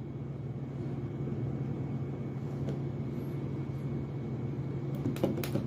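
Steady low hum with an even background hiss, and a few sharp clicks near the end.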